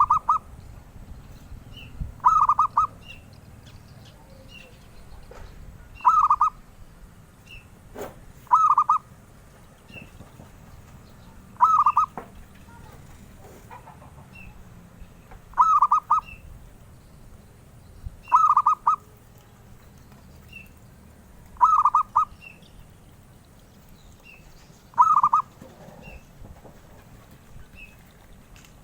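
Zebra dove (perkutut) singing: a short, rapid, stuttering coo repeated about nine times, roughly every three seconds.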